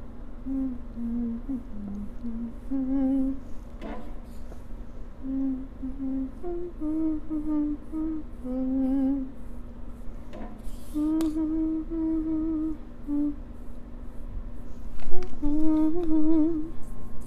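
A woman humming a slow tune to herself, holding wavering notes with short breaks between phrases. A few sharp knocks come through about four, ten and fifteen seconds in, the last the loudest.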